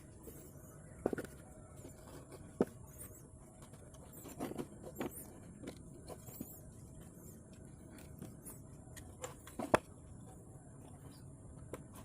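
A few scattered light knocks and clicks over faint steady background noise, the sharpest one near the end.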